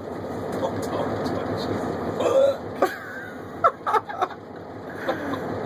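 A man hiccupping: a few short, abrupt hiccups in quick succession between about two and four seconds in.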